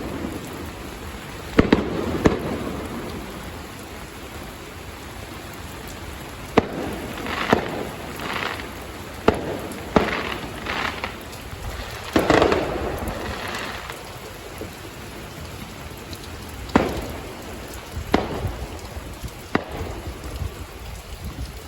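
Fireworks display going off: sharp bangs at irregular intervals a second or few apart, some followed by a brief rumbling tail, over a steady hiss.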